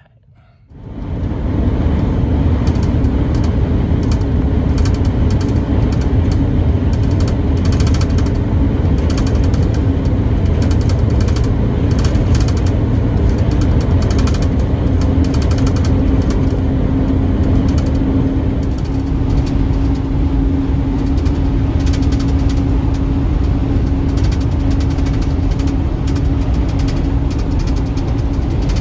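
Road noise inside the cab of a moving Mercedes-based motorhome: a loud, steady low rumble with a humming drone and frequent short rattles and clicks, starting about a second in.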